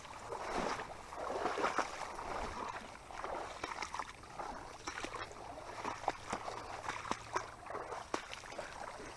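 Water sloshing and splashing in irregular surges, with many small splashes, as something moves through shallow swamp water.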